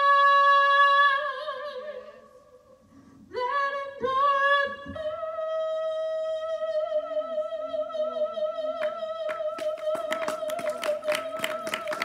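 A woman singing unaccompanied, holding long notes with vibrato, with a short break about two seconds in and then one long note held through the rest. Quick, even, sharp beats join in over the last few seconds.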